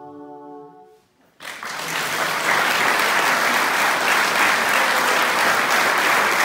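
A women's choir's final held chord fades out about a second in, and after a brief silence applause breaks out and carries on steadily.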